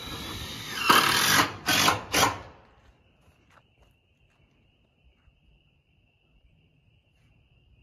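Cordless drill driving a screw into metal roofing, building up and then running in three short loud bursts as the screw goes home, which stops abruptly about two and a half seconds in. After that only a faint steady high-pitched tone remains.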